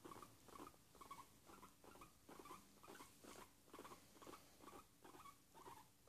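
Guinea pig making faint, rhythmic contented sounds while being stroked, a short pulse about three times a second.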